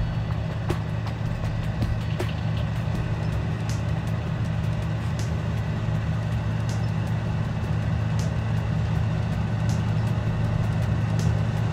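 John Deere S670 combine harvester and the tractor with chaser bin beside it, engines running in a steady low drone while harvesting. Faint light ticks come through about every second and a half.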